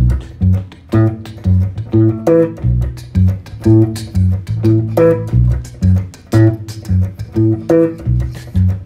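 Guitar playing an instrumental passage: a repeating plucked riff at a steady pulse, with strong low bass notes under higher picked notes.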